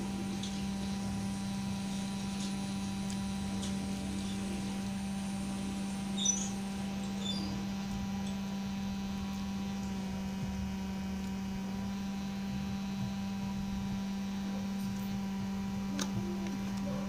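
A steady electrical hum with a strong low tone and fainter higher tones, a brief high-pitched blip about six seconds in, and a faint click near the end.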